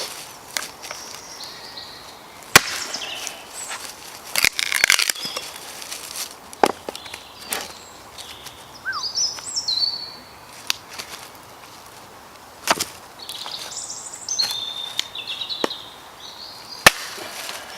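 Wood being split with repeated chopping blows, most likely an axe: about eight sharp knocks at uneven gaps of one to four seconds. Small birds chirp and trill between the strikes.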